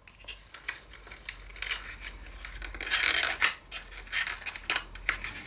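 Cardstock rustling and crackling as a small paper gift box is folded and pressed together by hand, with scattered light clicks and snaps of the card.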